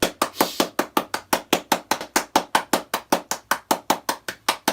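A rapid, even series of sharp knocks, about five or six a second, running without a break.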